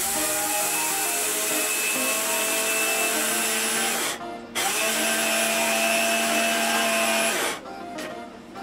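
Bosch MCM3501M food processor motor driving its grinder attachment: it runs for about four seconds, cuts off briefly, then runs again for about three seconds before stopping.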